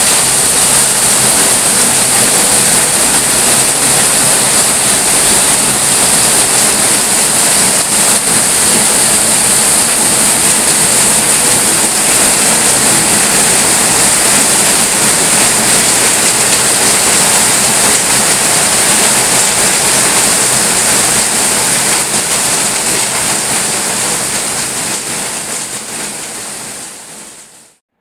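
Heavy rain falling steadily, a dense, even hiss. It fades away over the last few seconds.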